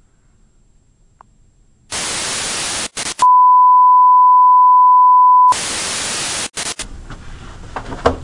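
Television static hiss comes in about two seconds in, gives way to a loud, steady single-pitch test-pattern tone for about two seconds, then returns and cuts off suddenly.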